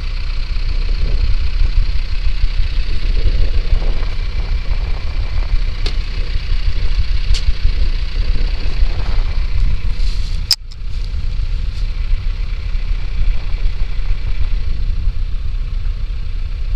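A vehicle engine idling with a steady low rumble. There is a single sharp click about ten and a half seconds in, followed by a brief dip in the sound.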